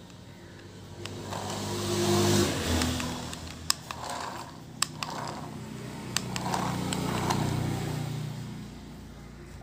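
Toy remote-control car driving across a concrete floor: its small electric motor and plastic gearbox running, rising to a peak about two seconds in and easing off near the end, with a few sharp knocks in the middle.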